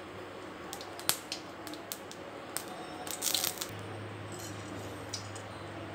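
Melted ghee heating in a hot stainless-steel kadai, with a faint hiss and scattered small pops and crackles, a few together just past the middle. A low steady hum comes in about two-thirds of the way through.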